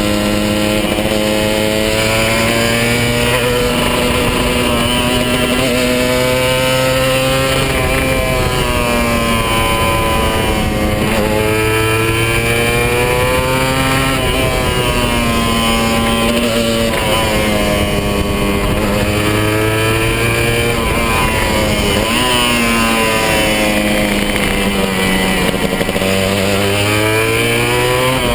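Kawasaki 150 RR's two-stroke single-cylinder engine under way, its pitch climbing and dropping back several times as the bike accelerates and eases off through the bends. The bike is in its stock run-in period.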